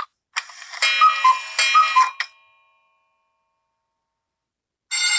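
Clock tick-tock sound effect: a short run of ticks with alternating high and low tones over about two seconds. Near the end a bell starts ringing steadily.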